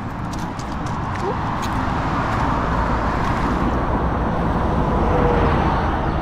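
A car driving along a road: steady road and wind noise with a low rumble, growing gradually louder.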